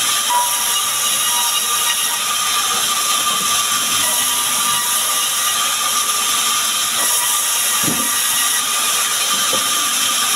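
Sawmill band saw running and cutting through small sengon logs: a loud, steady whine and hiss of the blade, with no let-up as the wood is pushed through.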